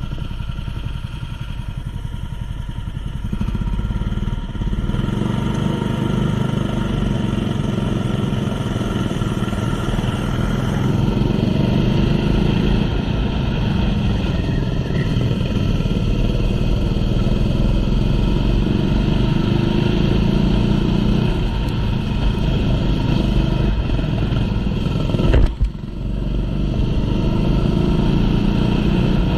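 Small racing engine running hard through a race heat, its pitch repeatedly climbing under acceleration. About 25 seconds in there is a sharp jolt and the sound drops out for a moment.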